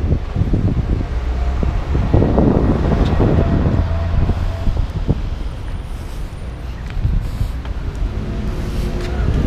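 Wind buffeting the microphone of a moving camera, a ragged low rumble, over the sound of city street traffic.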